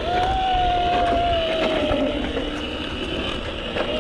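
Electric motor whine of a 12V kids' ride-on hoverboard, the pitch sinking slowly over about two seconds as it slows, over a low rumble; the whine picks up briefly again near the end.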